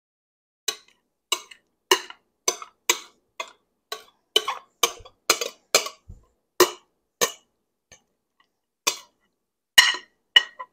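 A spoon knocking and scraping against the inside of a glass mixing bowl, about seventeen sharp clinks at an uneven pace of roughly two a second, as the last of a thick casserole mixture is scraped out.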